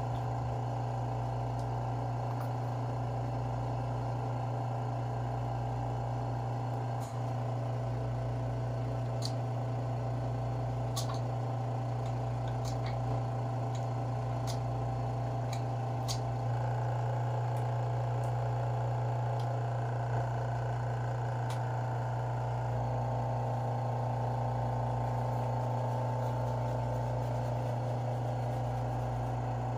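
Vacuum pump of a countertop seam setter running with a steady hum, holding the suction cups down on the quartz slabs, with a few light clicks from handling the tools.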